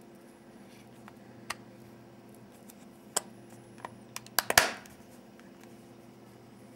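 Handling noise: a few scattered clicks and taps, then a quick cluster of louder knocks about four and a half seconds in, over a steady low electrical hum.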